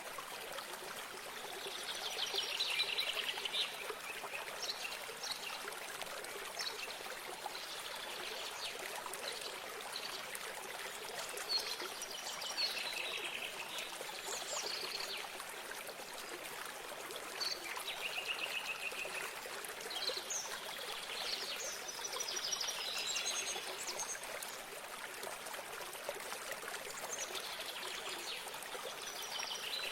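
Small stream of water trickling steadily, with songbirds singing short bursts of song over it several times.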